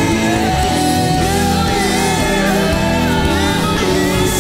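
Live gospel band playing, with a sung melody line over keyboard, electric guitar and drums.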